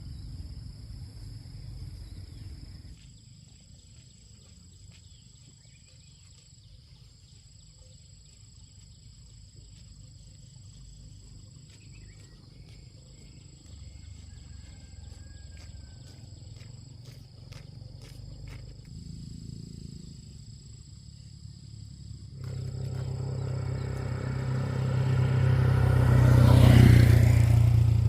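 Low rumble with a few faint clicks, then a motor vehicle's engine comes in about two-thirds of the way through and grows steadily louder, loudest just before the end.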